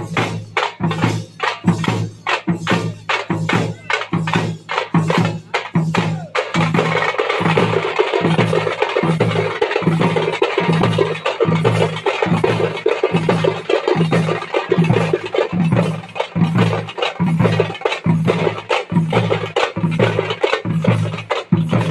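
A troupe beating thappu (parai) frame drums with sticks: sharp, rapid strokes over a steady low drum pulse. About six seconds in, the playing turns into a fast, dense roll.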